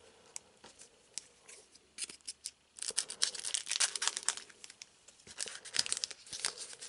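Foil wrapper of a Dragon Ball Z CCG booster pack crinkling and rustling as it is picked up and handled, starting about three seconds in, with a brief lull before a second spell.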